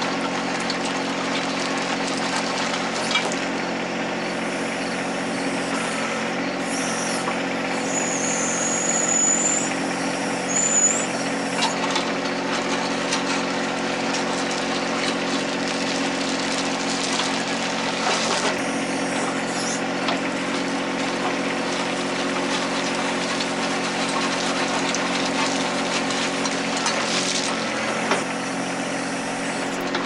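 John Deere 1025R compact tractor's three-cylinder diesel running steadily while the 260 backhoe drags its bucket and scraper blade through landscape rock, with scattered faint clicks of stone. Two brief high squeaks come about eight and ten seconds in.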